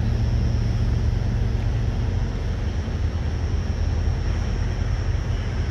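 Steady low rumble of idling engines, with a faint steady high whine above it.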